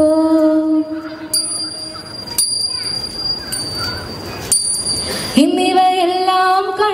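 Margamkali song: a held sung note ends about a second in, then small hand cymbals are struck three times, each stroke ringing on a high tone. About five seconds in, the singing comes back with a long held note.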